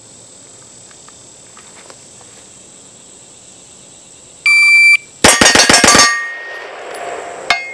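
Electronic shot timer gives a half-second start beep. About 0.8 s later six rapid 9mm shots ring out from a gold-plated 2011 pistol, about seven a second, ending roughly a second and a half after the beep, with echo trailing off. A single sharp clink comes near the end.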